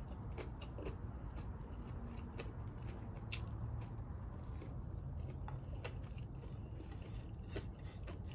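A person chewing and biting food close to the microphone: a run of irregular small sharp clicks from the mouth, over a low steady rumble.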